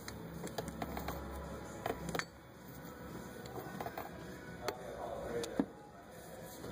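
A small power tool runs for about two seconds, spinning out a 10 mm water-pump bolt, then scattered metal clicks and clinks as the socket and bolt are handled.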